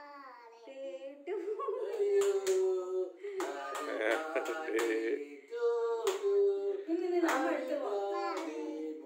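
A small group of voices singing a birthday song during the cake cutting, in held notes, with scattered hand claps.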